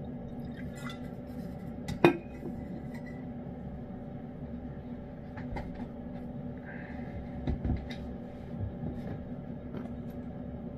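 A sharp clink with a short ring, about two seconds in, as a metal drinking tumbler is set down on a hard countertop, over a steady low hum. A few fainter knocks and taps follow later.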